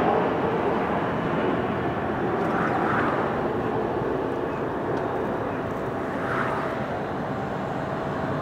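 Boeing 737-800 airliner's CFM56 jet engines running as it passes low over the runway, touches down and rolls out: a steady rush of jet noise that eases slightly.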